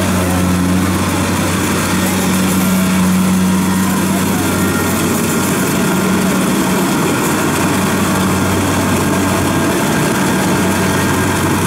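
Kubota DC-70 combine harvester working: its diesel engine runs at a steady low pitch under load while the machine cuts and threshes rice, with no change throughout.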